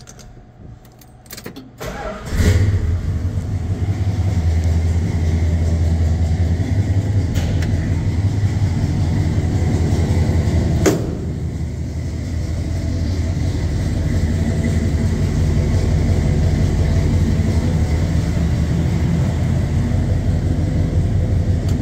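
A 1984 Dodge W350 Power Ram's swapped-in 440 big-block V8 cranks briefly and starts about two seconds in, then settles into a steady idle. A single sharp click is heard about halfway through.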